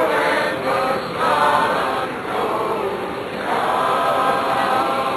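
A group of voices singing together in long, sustained phrases, with short breaks between them.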